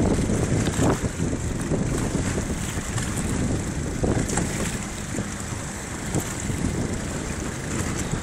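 Strong wind rumbling on the microphone over a choppy sea, a steady rush with a few brief gusts.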